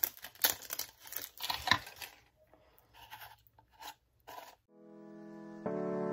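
A new jar of loose setting powder being opened by hand: its plastic seal and lid crackling, rustling and clicking, busiest in the first two seconds and then in scattered clicks. Soft piano music fades in near the end.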